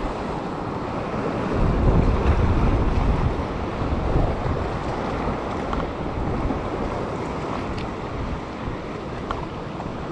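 Wind buffeting the microphone over the steady wash of surf breaking on rocks, loudest about two seconds in.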